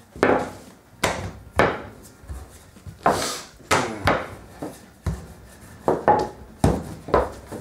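Wooden rolling pin knocking and rolling on a stainless-steel worktop as laminated dough is rolled out: a string of about ten sharp knocks at irregular intervals, one or two a second.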